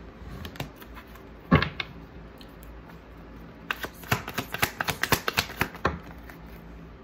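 Tarot cards being handled and shuffled by hand: one sharp tap about a second and a half in, then a quick run of card clicks lasting about two seconds from around halfway through.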